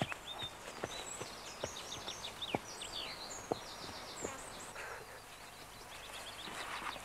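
Hooves of a horse on a grassy track, a few single knocks about a second apart that die away in the first half. Over them a small bird sings quick runs of short high chirps.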